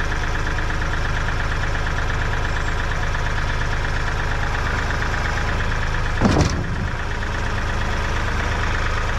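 Tractor engine idling steadily. About six seconds in comes one short, loud knock.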